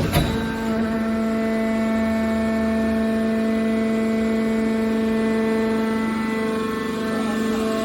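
Hydraulic metal baler's power unit running, a steady pump-and-motor whine with a sharp knock just at the start.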